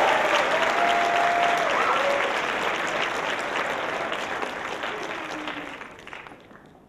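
Theatre audience applauding, with a few voices whooping in the first couple of seconds; the clapping fades away to near silence by the end.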